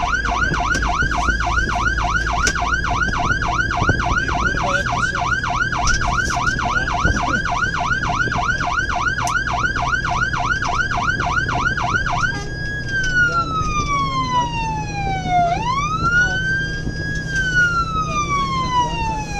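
Fire engine's Federal Signal PA300 electronic siren, heard from inside the cab of the Scania P410 on an emergency run: a fast yelp of about three rises and falls a second, switching about twelve seconds in to a slow wail that falls over about three seconds and sweeps quickly back up. The truck's engine and road noise hum steadily underneath.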